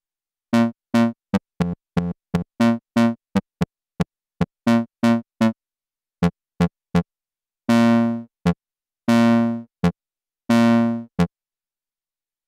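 Make Noise Eurorack synthesizer notes played from Pressure Points touch pads, each shaped by the Contour envelope generator, whose onset and decay are set per pad so each note has its own length and shape. A quick run of short, bright plucked notes, then three longer held notes near the end.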